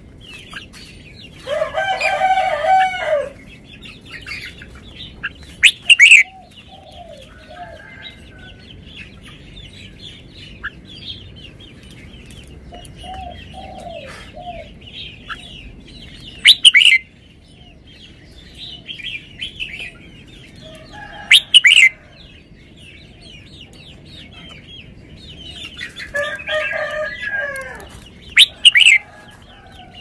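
Red-whiskered bulbul singing four loud, short, high whistled phrases, with steady high chirping between them. A rooster crows twice, once near the start and once near the end, each crow about a second and a half long.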